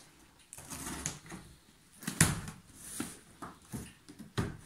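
Large cardboard box being handled and opened: cardboard scraping and rustling with several knocks and thumps, the loudest a sharp thump about two seconds in.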